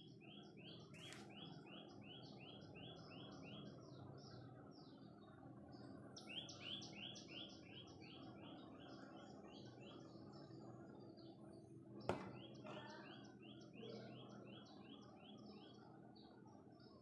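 A small bird singing faintly: runs of quick, evenly repeated chirps, about three a second, three runs in all, each several seconds long. A single sharp click sounds about twelve seconds in.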